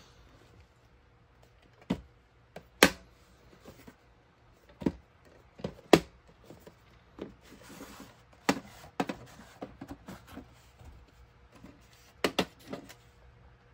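Plastic VHS clamshell case and videocassette being handled: a string of sharp plastic clicks and knocks as the case is set down, opened and the tape lifted out, the loudest a little under 3 seconds and about 6 seconds in.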